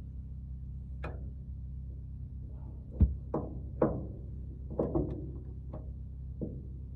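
A series of irregular sharp metallic knocks and clanks, about eight, the loudest about three seconds in, over a steady low hum. The knocks come from hand tools against metal fuel-line fittings as a hose fitting is refitted and tightened.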